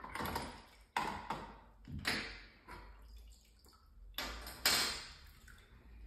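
Limescale-remover liquid sloshing and splashing in a small plastic jug as brass shower-valve parts are swished about in it by hand. There are about five short splashy swishes, the loudest near the end.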